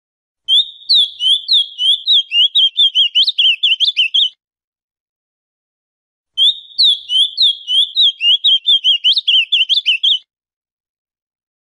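Ultramarine grosbeak (azulão) singing: two song phrases of about four seconds each, a couple of seconds apart, each a fast run of short, high, varied notes.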